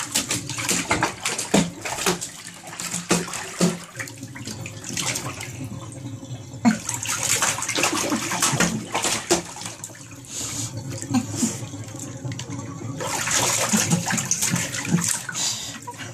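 A dog pawing and splashing in a filled bathtub: a continuous run of splashes and sloshing, with heavier bursts of splashing about seven seconds in and again near the end.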